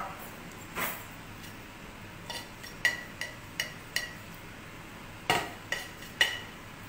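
A metal utensil clinking against a stainless steel saucepan: about ten sharp, ringing clinks in irregular clusters.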